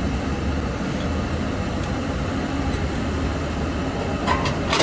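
Steady low rumble of engine noise on an airport ramp, with a few sharp knocks near the end as a baggage cart's tow bar and hitch are handled during coupling.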